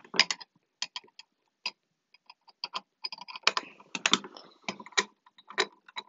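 Irregular mechanical clicks and clunks from a Gamewell manual fire alarm pull station, its mechanism being worked by hand.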